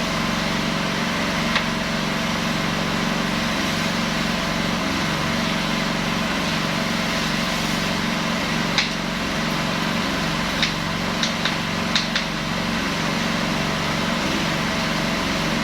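Honda GXH50 single-cylinder four-stroke engine running steadily at constant speed, driving a portable high-pressure firefighting pump. A few short sharp clicks sound over it, once about a second and a half in and several times between about 9 and 12 seconds in.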